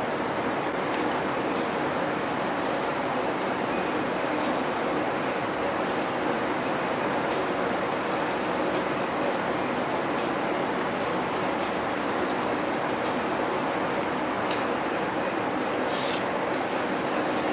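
1200-grit sandpaper rubbed by hand over a folding knife's steel blade, a steady scratchy rubbing noise.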